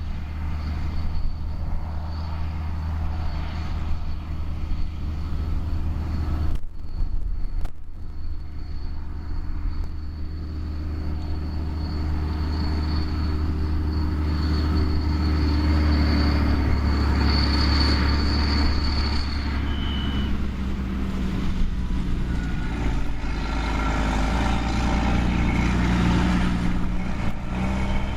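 Heavy diesel farm machinery working: a steady low engine drone with a thin high whine above it, growing louder in the second half.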